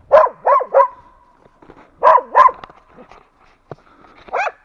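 West Siberian laika barking at a shot bear lying on the ground: three quick barks, then two more about two seconds in, then a single bark near the end.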